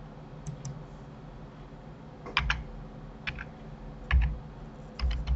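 Computer keyboard keys pressed singly, a handful of separate keystrokes with pauses between them, as shortcut keys are typed.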